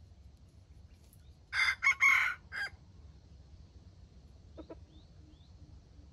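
A red junglefowl rooster crows once, a short, clipped crow of a few joined notes about a second and a half in. A couple of faint short calls follow a few seconds later.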